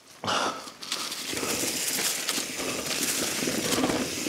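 Mountain bike rolling over a rough dirt trail, with a dense crackle of tyres on loose gravel and clattering from the bike. It starts abruptly.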